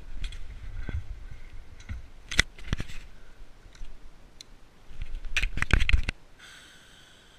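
Handling noise: rubbing, knocks and scattered sharp clicks as hands work the motorcycle's dash controls and the camera shifts, ahead of a cold start. A dense run of loud clicks comes about five to six seconds in and is the loudest part. A faint steady whine follows near the end.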